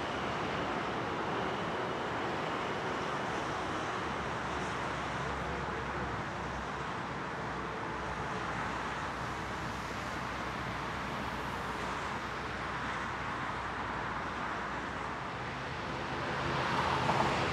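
Rolls-Royce RB211 jet engines of a Boeing 767-300ER airliner making a steady rushing noise as it lands and rolls out on the runway. Near the end, the steady droning hum of an ATR 72 turboprop's propellers comes in as it taxis.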